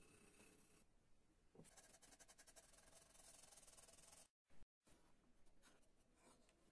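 Faint scratching of a felt-tip marker rubbed quickly back and forth on bare wood, colouring in. Partway through it cuts to dead silence twice in quick succession, and fainter pen-on-wood scratching follows as a compass pen draws circles on a pine board.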